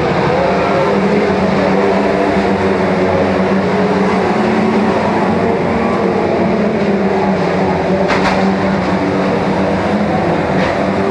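A pack of saloon stock cars racing on a shale track, many engines running together in a loud, steady mix of tones, with two short sharp knocks about eight seconds in and near the end.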